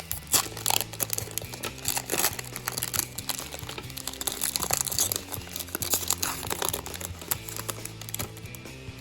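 A 2011 Donruss baseball card pack's wrapper crinkling and tearing as it is ripped open by hand, in sharp irregular crackles that thin out near the end, over steady background music.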